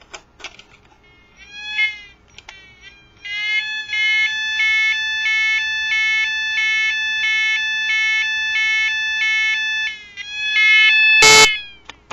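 Small fire alarm's electronic sounder on its ambulance setting: a few short rising chirps, then a steady two-tone siren stepping between high and low about one and a half times a second. Near the end it gives a short burst and stops with a loud click.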